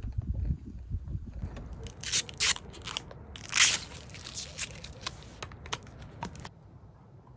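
A run of irregular crunching and crackling sounds, with a few sharper, louder ones about two to four seconds in, stopping shortly before the end.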